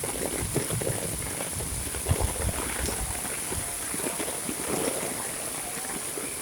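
Heavy monsoon rain falling steadily: an even wash of rain with a dense patter of individual drops, a few of them louder ticks.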